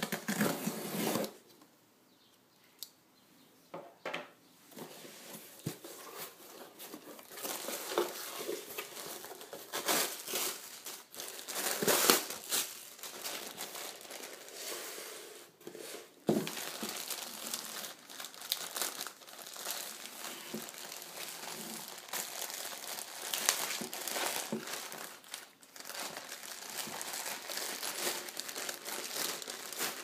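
Packing tape torn from a cardboard box briefly at the start, then, after a short pause, a plastic bag crinkling and rustling in irregular bursts as it is handled and pulled open.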